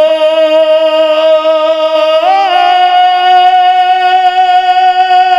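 A man singing a naat into a microphone, drawing out one long held note on the end of a line. About two seconds in, the note turns briefly and steps up a little, then holds steady.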